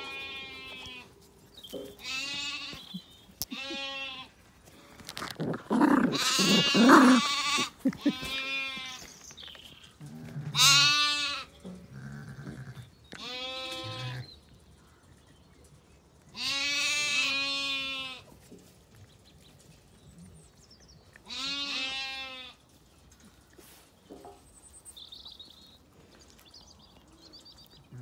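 Zwartbles sheep bleating, one wavering call every few seconds, about nine in all; the loudest and longest comes about six seconds in and lasts about two seconds.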